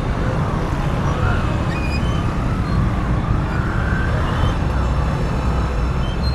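Busy street traffic at night: motorcycle engines running, with a heavy low rumble.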